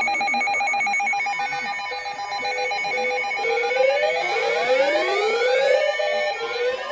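Emergency alert attention tone: a loud electronic tone warbling rapidly between pitches, joined about halfway through by rising, siren-like sweeps that repeat.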